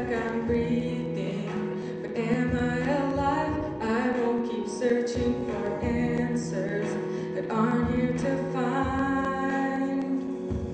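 Women singing a Christian song with instrumental accompaniment that holds long, steady low notes beneath the voices.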